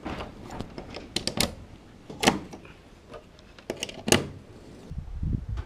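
Handling noise: a string of sharp clicks and knocks in several clusters, with dull low thumps near the end.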